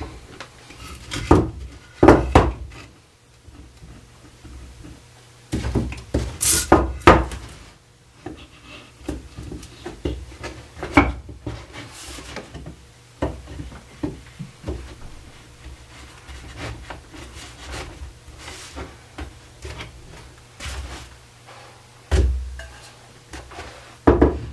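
Wooden chair parts being handled and fitted together during a glue-up, with irregular sharp knocks of wood on wood and on a hard work surface. Several louder knocks come in the first seven seconds and again near the end.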